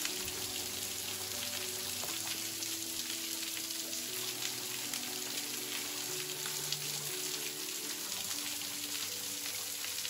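Small wet-weather waterfall splashing steadily over rocks: an even hiss of falling water, running well after recent rain.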